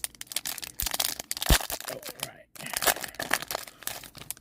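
Plastic wrapper of a trading-card booster pack crinkling and tearing as it is opened by hand, in quick irregular rustles with a short pause partway through.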